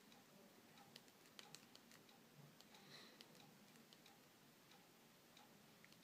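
Near silence broken by faint, irregular clicks from fingertips tapping a Sony Ericsson Aino mobile phone's touchscreen as its menus are stepped through, with a short faint beep about halfway.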